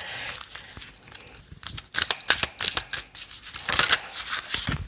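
A deck of oracle cards shuffled by hand, papery rustling and quick flicks of the cards in two bursts, about two seconds in and again near four seconds.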